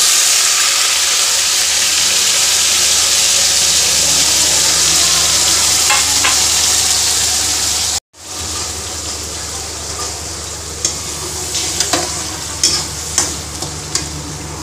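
Wet onion, garlic and ginger paste hitting hot oil in a kadhai and sizzling loudly at once in a dense hiss. After a brief break about eight seconds in, a quieter steady sizzle with sharp clicks and scrapes of a metal ladle stirring the paste.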